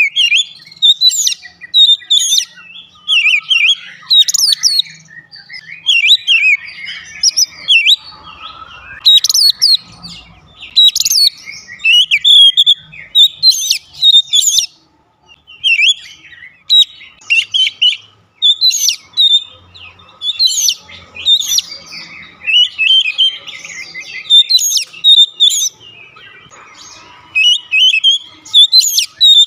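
Male Oriental magpie-robin singing loud, varied phrases of whistles and chirps, many notes sweeping up and down, with short pauses between phrases.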